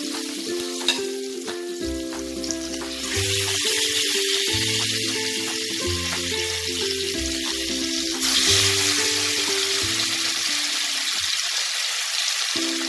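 Marinated chicken leg pieces sizzling as they fry in hot oil and ghee in a pan. The sizzle grows suddenly louder about three seconds in and again about eight seconds in.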